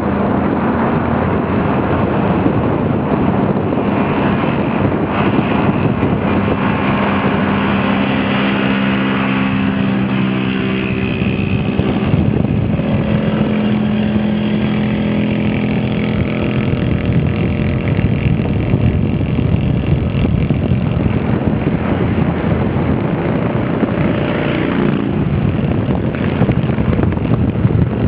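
Vento V-Thunder motorcycle engine running at highway speed, a steady drone whose pitch shifts a couple of times, under heavy wind rush on the microphone.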